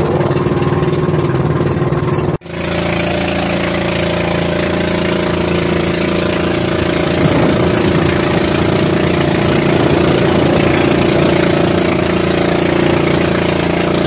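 Motorized outrigger boat's engine running steadily under way, with wind and water noise. The sound breaks off for an instant about two seconds in, then carries on.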